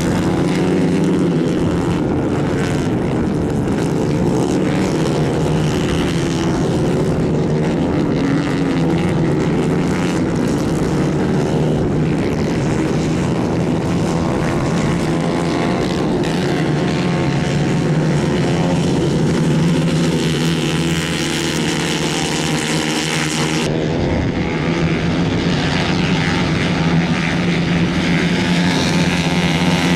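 Several racing kart engines buzzing as the karts lap a dirt track, their pitch rising and falling as they accelerate and pass, with an abrupt shift in the sound about three-quarters of the way through.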